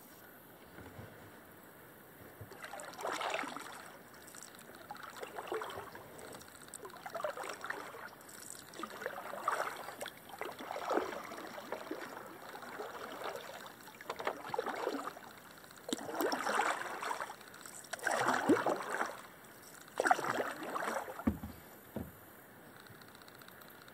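Double-bladed kayak paddle stroking through calm water: a swish and drip of the blade about every two seconds, starting a few seconds in and stopping shortly before the end.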